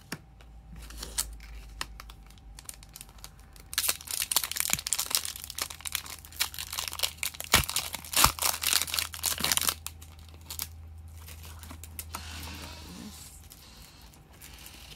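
Pokémon Hidden Fates booster pack's foil wrapper crinkling and being torn open: a dense, loud crackle for about six seconds in the middle, after a few light taps of cards being set down.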